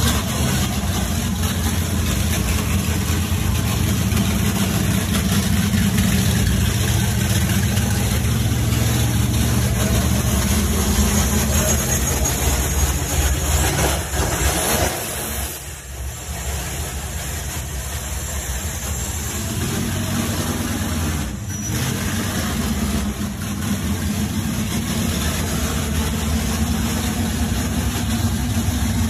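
Studebaker Hawk drag car's engine idling steadily, with a brief dip in level a little past the middle.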